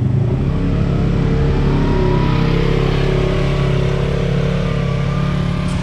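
Off-road vehicle's engine running hard under steady throttle, its pitch rising a little at first and then holding.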